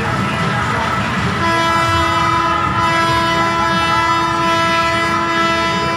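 A loud, steady horn-like tone starts about one and a half seconds in and holds without changing pitch, over a constant low rumble of noise.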